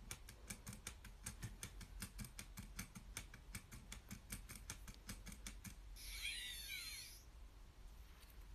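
Faint rapid clicks of typing on a keyboard for the first five seconds or so. About six seconds in, a Micropet robot bear toy lets out an electronic warble lasting about a second, its pitch wavering up and down.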